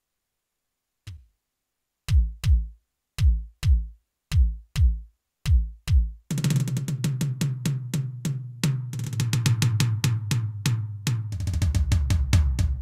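Roland TD-8 electronic drum module sounding its kit: a single light hit, then four pairs of heavy low drum strokes, then from about six seconds in a fast, busy run of drum hits, with more bass drum near the end.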